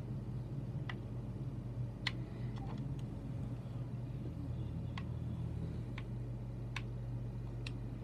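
A steady low hum with faint, sharp ticks at irregular intervals, about nine in all.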